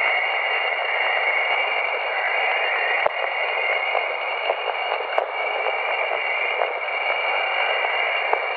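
Steady radio-like static hiss with a few high steady tones held beneath it and scattered faint crackles; a sharper click comes about three seconds in and another about five seconds in.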